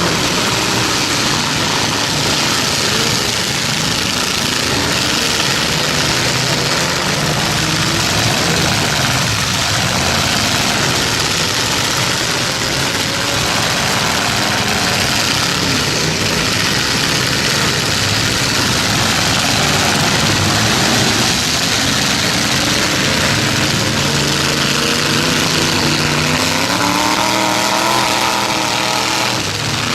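Several demolition derby pickup truck engines running loud and revving together in a dense, unbroken din, their pitches rising and falling. Near the end one engine revs up sharply.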